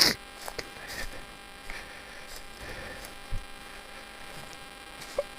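Faint steady hum and hiss, with a few light clicks and a soft low thump about three seconds in.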